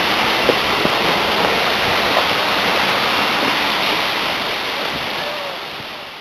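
Steady rushing of a waterfall, fading out near the end.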